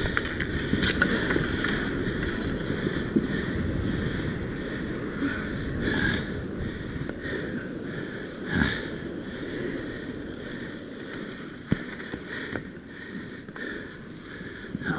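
Inline roller skate wheels rolling and scraping on a hard court, a steady rumble, broken by a few sharp knocks of hockey sticks during play.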